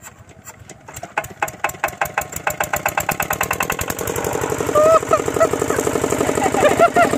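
Hand-cranked single-cylinder Kirloskar diesel engine driving a water pump, starting up. Slow, uneven firing strokes about a second in speed up into a steady, fast running beat by about four seconds in, growing louder as it comes up to speed.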